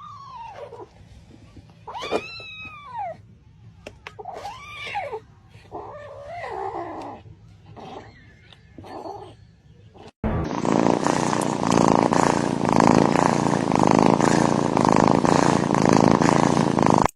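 A cat meowing repeatedly: about six drawn-out meows, each rising and falling in pitch. About ten seconds in, this cuts off abruptly and a loud, steady rushing noise with a faint regular pulse takes over.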